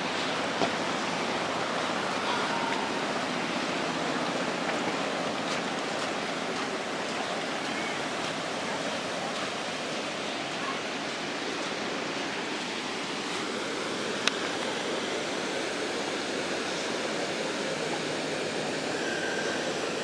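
Steady rushing water noise, even and unbroken, with two brief sharp clicks, one just after the start and one past the middle.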